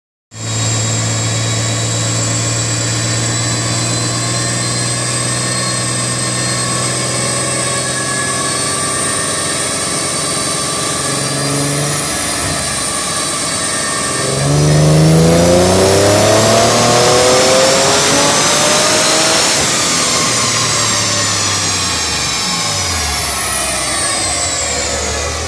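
Nissan 370Z Nismo's twin-turbocharged 3.7-litre V6 running on a chassis dyno. It holds a steady speed for about fourteen seconds, then gets louder as the revs climb for about five seconds, and then winds back down. A high whine rises and falls with the engine.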